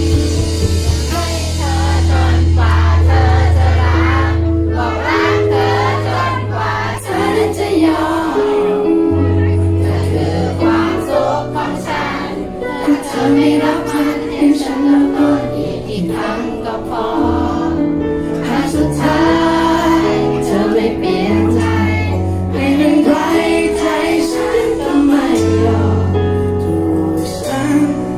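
Male singer singing a pop ballad live into a microphone, amplified through PA speakers, over backing music with a sustained bass line and chords.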